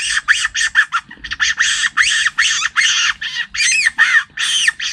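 A man imitating a rat's squeaking with his lips and breath: a rapid run of short, high, thin squeaks, about five a second.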